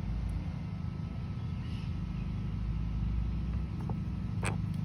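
Steady low rumble with two short light clicks near the end.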